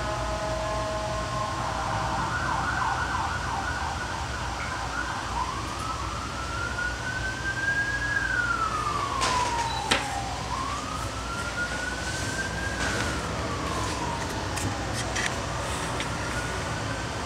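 A siren, warbling quickly for the first few seconds, then wailing in slow rises and falls of a few seconds each. A steady low hum runs underneath, and a sharp click comes about ten seconds in.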